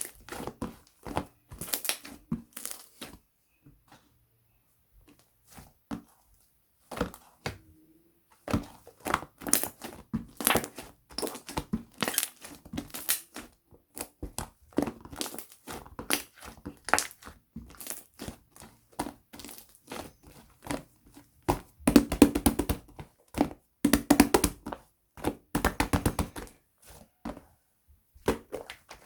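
Milkshake-type slime being squeezed, stretched and pressed by hand, giving irregular crackling clicks and small pops. There is a short lull about four seconds in, and the crackling is thickest and loudest about three quarters of the way through.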